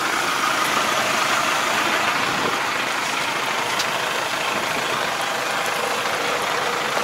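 Tractor diesel engine running steadily under load while its rear-mounted Niplo Cyber wing harrow churns through the mud and water of a flooded rice paddy.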